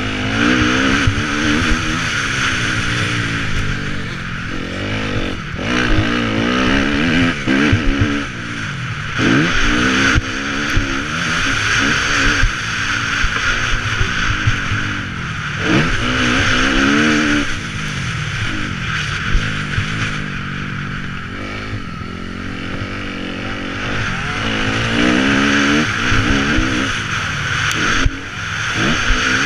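Motocross bike engine revving up and dropping back again and again as the rider accelerates, shifts and backs off around the track, heard from on board the bike. A steady rush of noise runs under it.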